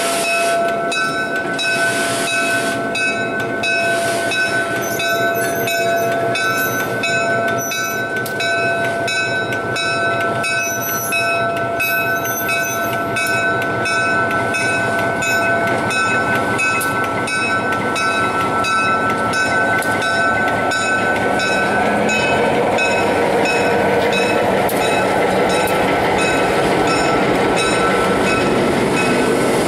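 Standing steam locomotive N&W 611 and an idling diesel beside it, giving a steady high whine and hiss with light rapid ticking. About two-thirds of the way in, a diesel locomotive rolls in and its engine and wheel noise grows louder.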